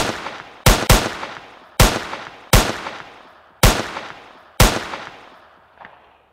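Rifle gunshots fired singly at an uneven pace: seven loud shots in under five seconds, each ringing out in a long echo, then a faint eighth shot near the end.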